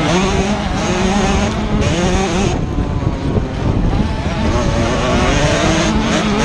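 Dirt bike engine revving hard under race throttle, heard from the bike itself, its pitch wavering up and down as the rider works the throttle; it eases off briefly about two and a half seconds in, then pulls again.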